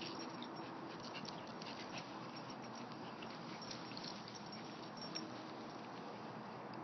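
Small dogs sniffing and scrabbling around a rock in grass: faint rustles and scattered light ticks over a steady background hiss.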